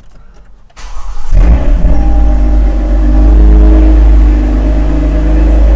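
Car engine starting about a second in, flaring up briefly and then settling into a loud, steady idle with a low rumble.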